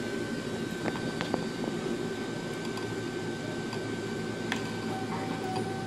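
Steady fan-like workshop hum with a thin high whine, and a few light clicks of metal hardware being handled as a bolt is started by hand on a motorcycle engine guard.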